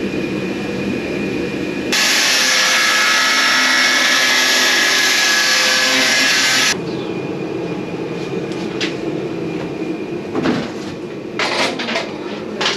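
Angle grinder cutting through a motorcycle's metal struts: a loud, steady cutting noise that starts about two seconds in and stops abruptly nearly five seconds later. A few short knocks and clinks follow.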